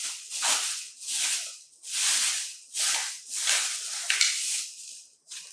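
Thin plastic bag crinkling and rustling as it is handled and pulled open, about seven crisp rustles in a row, one every half second to second.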